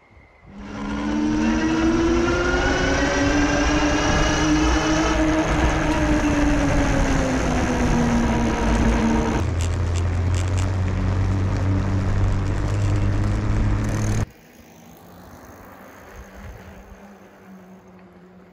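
Engwe Engine Pro fat-tyre e-bike riding past close to the camera on asphalt: a loud hum whose pitch rises and then falls. It cuts off suddenly about fourteen seconds in, leaving faint wind.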